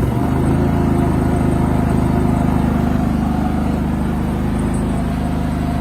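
Generac iQ3500 inverter generator running steadily while powering a blower fan on high; just after the start its engine note changes and settles a little louder.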